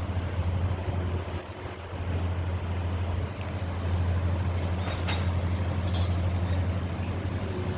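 Canadair water bomber's engines droning steadily, a low, even hum under a haze of wind and sea noise, with a few brief clicks about five seconds in.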